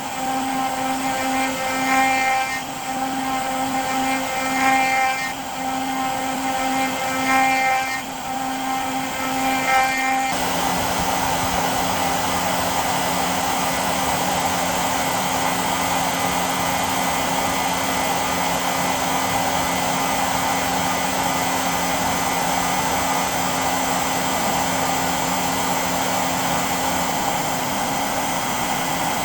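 DIY CNC router spindle running while milling aluminium. For about the first ten seconds, pitched tones cut in and out in a repeating rhythm as the machine moves. Then the sound changes abruptly to a steady, noisier whir.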